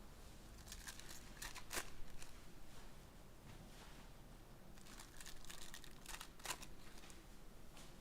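Foil trading-card pack wrappers crinkling and tearing as packs are ripped open, in two short bursts of crackles.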